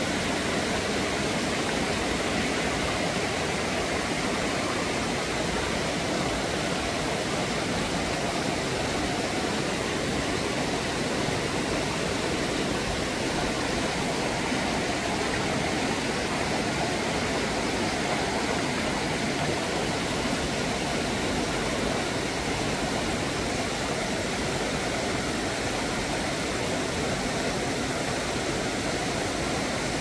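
Shallow rocky mountain stream rushing over stones and riffles, a steady, even rush of water.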